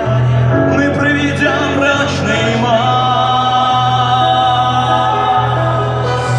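Live rock band music: a steady bass line under held chords, with some singing.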